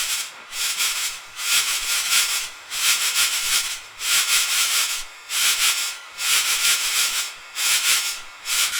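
Gauze pad being rubbed and crumpled in the hand: bursts of dry rustling, in irregular strokes about one to two a second.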